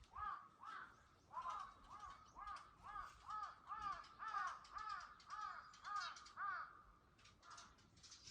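A crow cawing in a long rapid run of short caws, about two to three a second, stopping about seven seconds in.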